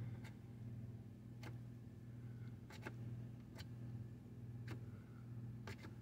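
Refrigerator running with a steady low hum, with a few faint, irregular clicks over it.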